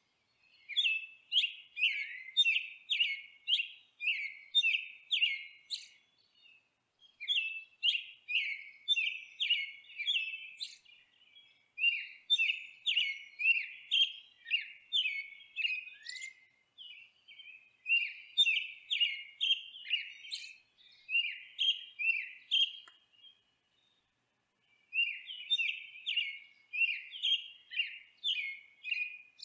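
A songbird chirping: runs of quick, repeated high chirps, two or three a second, broken by short pauses and a longer silence about three quarters of the way through. No other sound under the bird notes.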